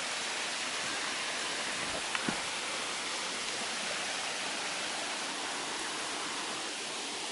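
Creek water rushing steadily below a log crossing, with two small knocks about two seconds in.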